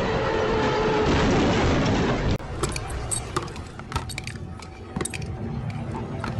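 A loud, dense crash noise for about two seconds. Then, after a sudden change, a full-face motorcycle helmet rolls and rocks on pavement with many sharp clinks and clattering taps.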